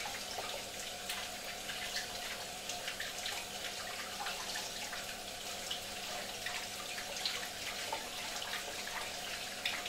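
Kitchen tap running into a metal bowl of mushrooms, the stream splashing steadily while hands rub and rinse the mushrooms under it, with many small splashes and clicks.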